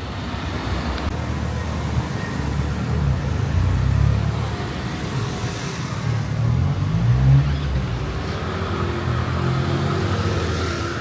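A motor vehicle's engine running close by in street traffic, a low rumble that swells twice, about four and about seven seconds in, as it passes.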